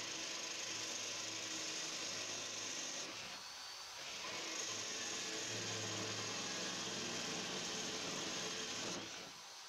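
Handheld electric drill mounted in a drill-press stand, running under load as a large bit bores through steel sheet. It runs steadily, dips briefly about three seconds in, picks up again, and falls away near the end.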